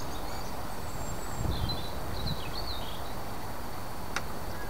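Birds chirping briefly over steady outdoor background noise, with a single sharp click about four seconds in.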